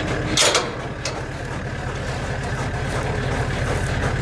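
A ute's engine idling steadily, with a brief clatter about half a second in.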